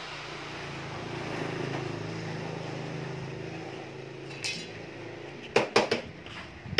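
Several sharp metallic clanks near the end, as a steel bar clamp and steel edging are knocked into place on a plywood speaker cabinet. A low hum fades out over the first few seconds.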